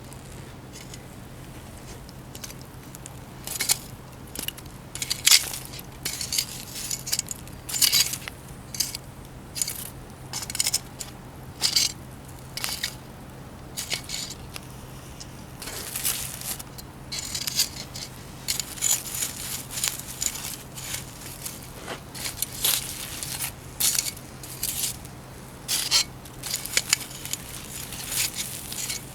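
Irregular short scraping and clinking handling noises, coming in quick clusters from a few seconds in, over a steady low hum.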